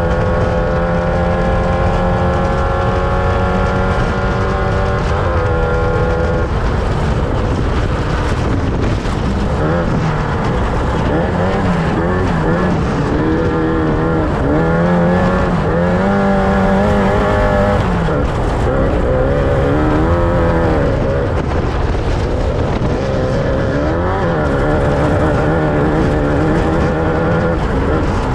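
Off-road race vehicle's engine running hard under a constant low rumble. Its note climbs slowly for about the first six seconds, breaks off, then rises and falls repeatedly as the revs go up and down.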